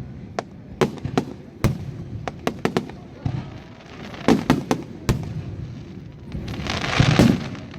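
Aerial fireworks bursting overhead: a rapid, irregular series of sharp bangs, about a dozen in all. Near the end a rush of noise swells and fades.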